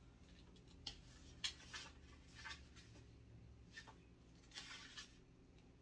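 Faint, soft paper rustles as the pages of a small old hardcover book are leafed through, a handful of separate page turns over a low steady room hum.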